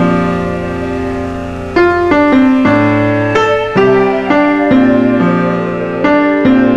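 Calm ambient instrumental music: a piano playing slow chords and melody notes, each struck and left to ring, with a new note or chord about every half second to a second.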